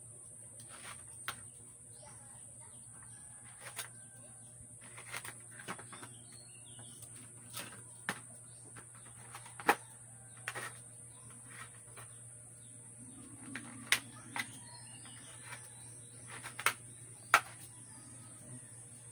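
Scattered clicks and light knocks of small plastic and metal parts being handled during the assembly of a homemade air compressor's hoses and filter, over a steady high hiss and a low hum.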